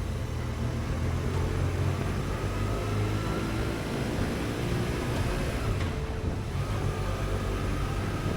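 BMW R1150RT's boxer-twin engine running steadily while riding, with road and wind noise.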